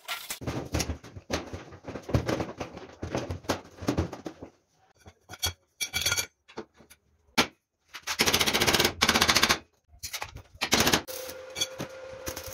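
Metalworking on a steel frame and sheet-metal panels: stretches of rapid, crackling tapping, each broken off abruptly, with short silent gaps between. A steady low hum comes in near the end.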